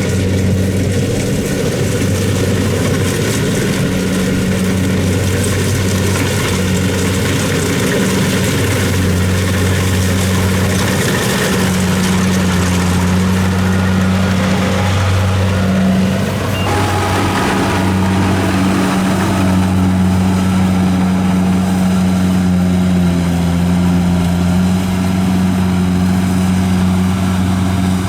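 Engine of a rice harvesting machine running steadily at a constant speed, a loud, even hum with a slight change in tone about halfway through.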